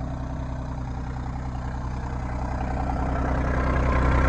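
RK25 compact tractor's diesel engine idling steadily, getting louder over the second half.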